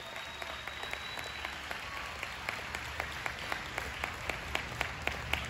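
A crowd clapping along in time, a steady beat of about four claps a second that grows sharper after the first couple of seconds, over the general noise of a large audience.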